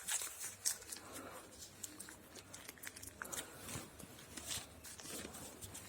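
Faint crinkling and small clicks of plastic packaging being handled.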